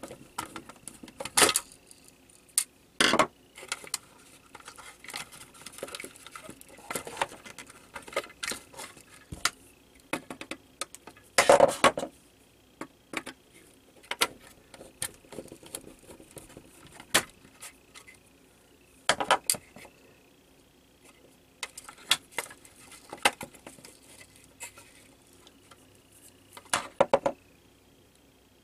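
Scattered sharp clicks, knocks and rattles of an Xbox power supply's plastic case being unscrewed and prised apart by hand, with small parts handled. A few knocks stand out louder than the rest.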